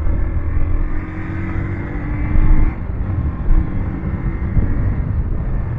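Steady engine and road noise of a moving vehicle, with a faint steady whine that drops away about two and a half seconds in.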